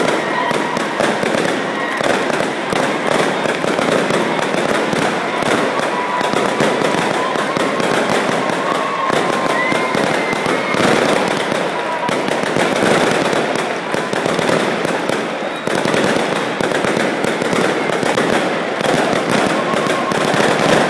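Strings of firecrackers crackling in a continuous rapid run of pops over the steady din of a large crowd's voices.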